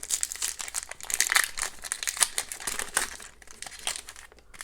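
Foil wrapper of an Upper Deck MVP hockey card pack crinkling as the pack is opened: a dense crackle for about three seconds that then dies away.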